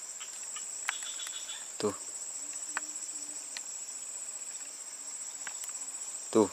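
Steady, high-pitched chorus of insects, with two dull knocks, one about two seconds in and a louder one near the end.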